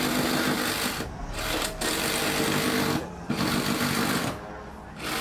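Cordless reciprocating saw running at the edge of a car's wheel arch, a steady buzzing rattle of the reciprocating blade. The trigger is released briefly about a second in, near the middle, and for a longer pause near the end.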